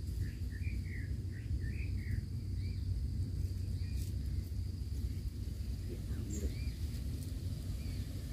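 Outdoor ambience: birds chirping, a quick run of chirps in the first two seconds and a few single chirps later, over a steady high insect drone. A constant low rumble underlies it all and is the loudest part.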